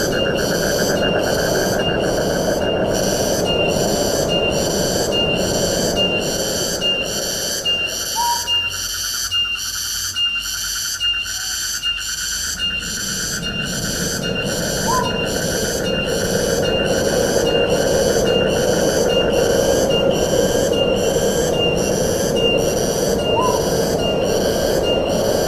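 Forest ambience: wind rushing through the trees, easing off for a few seconds in the middle, under a high-pitched insect chorus that pulses about one and a half times a second. A bird gives a short rising whistle three times.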